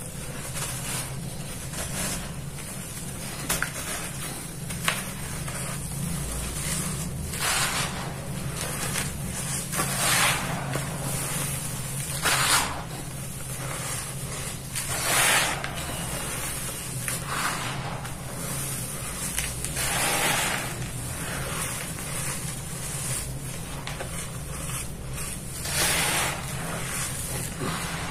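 Hands squeezing and crumbling soft, dry, powdery red dirt: a continuous soft crunching rustle that swells louder every few seconds as handfuls are crushed and let fall, with a few sharp ticks. A steady low hum lies underneath.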